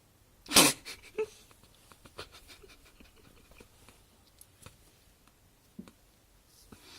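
A sleeping puppy's noisy breathing: one loud, sharp snort about half a second in, followed by a couple of smaller snuffles, scattered small clicks, and a soft breath near the end.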